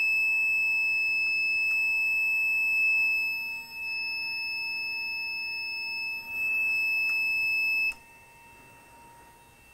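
T-962 reflow oven's buzzer sounding one continuous high-pitched beep, its end-of-cycle signal that the reflow profile is done. It cuts off suddenly about eight seconds in, when the oven's stop button is pressed.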